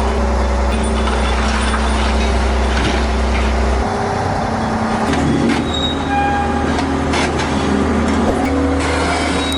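Diesel engine of heavy construction machinery running steadily, its low pitch shifting a couple of times midway. There are short high squeals and faint knocks of machinery working.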